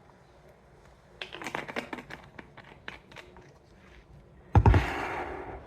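Glass jar and bottle being handled on a kitchen counter while vinegar is measured into the jar: a run of small clicks and taps, then a loud thump about four and a half seconds in followed by a brief rushing sound that fades.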